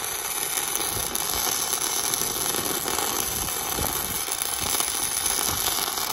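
Electric welding arc from a small welder crackling steadily on thick cast metal, then cutting off suddenly at the end.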